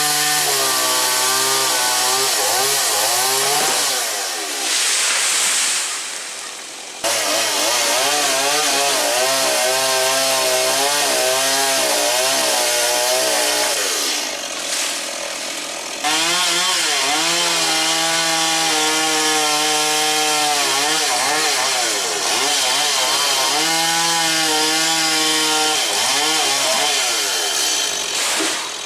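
STIHL MS 170 two-stroke chainsaw cutting through mango wood at high revs, its pitch wavering as the chain loads up in the cut. Twice it drops back briefly before cutting again.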